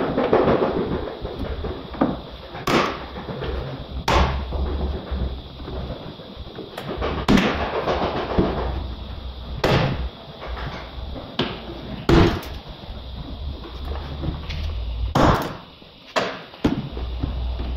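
Sharp plastic clicks and knocks at uneven intervals, about seven in all, from the rear door of a VW Polo 9N3 as its interior trim panel is worked loose, with rustling and scraping handling noise in between.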